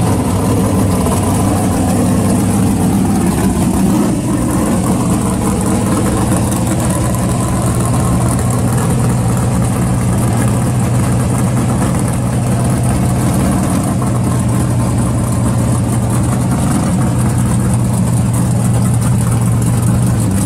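Late-1960s Ford Mustang fastback drag car's engine idling steadily, a low, even engine note with no revving.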